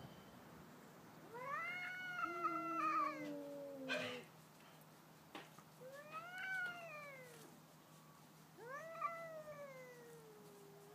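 Two domestic cats caterwauling in a territorial stand-off: three long, drawn-out yowls, each rising and then slowly sliding down in pitch. A second, lower voice overlaps the first yowl, and a short noisy burst comes right after it.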